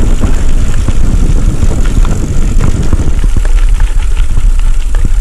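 Heavy wind buffeting on a camera microphone while riding a mountain bike down a rough dirt track, with frequent clicks and knocks from the bike rattling over the bumps.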